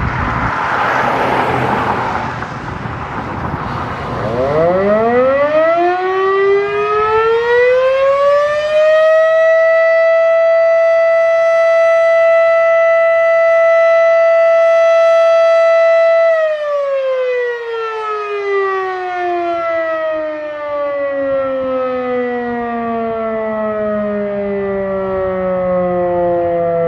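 Federal Signal Model 5 mechanical siren sounding its daily test. After a few seconds of loud rushing noise, it winds up over about five seconds to a steady, loud tone, holds it, then winds slowly down in pitch from about two-thirds of the way through.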